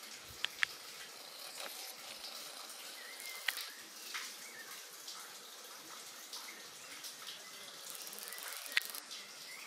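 Outdoor ambience beside a pond: a steady, water-like hiss with a few sharp clicks and faint, brief high whistles.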